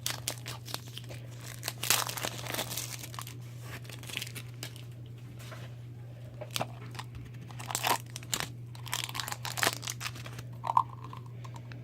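Crinkling and tearing of small plastic toy packaging being opened by hand, with irregular crackles and clicks throughout, over a steady low electrical hum.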